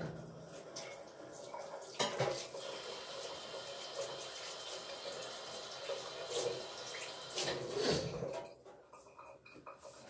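Kitchen tap running while hands are washed under it at the sink. The water stops about eight and a half seconds in.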